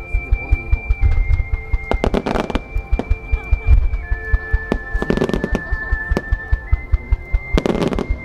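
Star Mine fireworks display with its music: a melody of long held high notes that step in pitch, over a fast, even train of low thumps. Three louder bursts of fireworks noise, each about half a second long, come roughly every three seconds.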